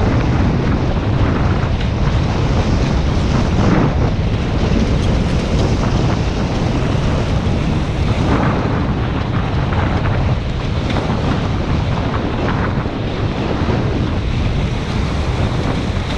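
Wind buffeting the microphone over water rushing and splashing past the fibreglass hulls of a Hobie 16 catamaran sailing fast. A few louder splashes stand out briefly.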